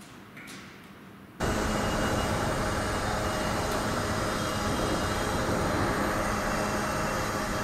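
Quiet workshop room tone with a few faint clicks, then, about a second and a half in, a loud steady machinery noise starts abruptly and runs on, with several steady tones in it.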